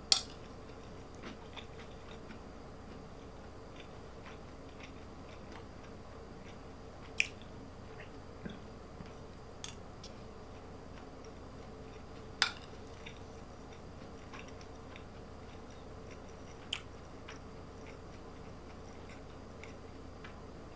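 Someone chewing food quietly, with a few sharp clicks scattered through, the loudest about seven and twelve seconds in, over a steady faint hum.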